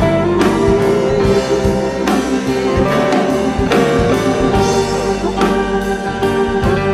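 Instrumental break of a pop-rock song with no vocals: a band with guitar playing over a steady drum beat.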